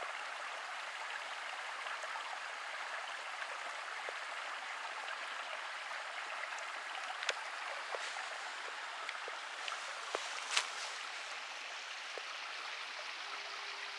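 A small creek running steadily over rocks, with a few light clicks scattered through it; the sharpest comes about ten seconds in.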